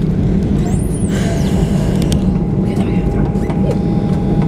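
Steady cabin noise inside a Boeing 737-800 taxiing: a low hum with a thin steady whine above it, and a few faint clicks.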